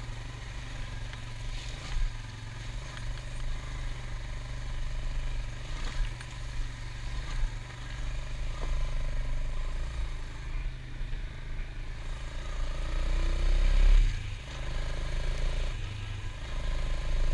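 ATV engine running steadily at low speed, revving up about three-quarters of the way through and then easing off.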